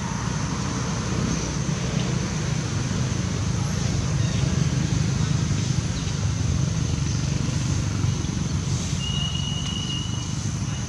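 Steady outdoor background noise: a low rumble with a hiss above it, unbroken throughout. A brief high, even tone sounds about nine seconds in.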